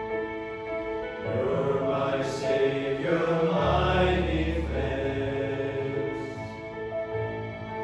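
Men's choir singing a worship song to Nord piano accompaniment. Held keyboard chords open; the singing comes in fuller about a second in, swells in the middle and eases off near the end.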